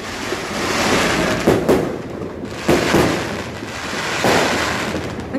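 New Year fireworks going off: a run of about five loud bangs over a few seconds, with a steady crackling hiss between them.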